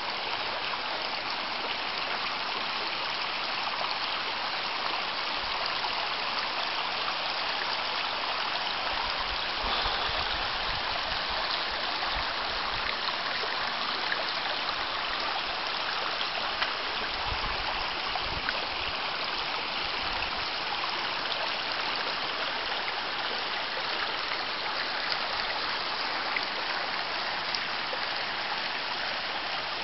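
A small, shallow river running steadily over stones and rocks.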